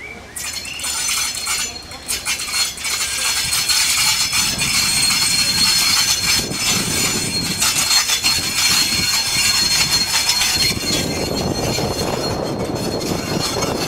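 DR class 112 (V 100) diesel-hydraulic locomotive hauling old goods wagons slowly past at close range. Steady high-pitched wheel squeal and clicking wheels run throughout. The locomotive's diesel engine rumble grows louder from about a third of the way in and peaks near the end as it draws alongside.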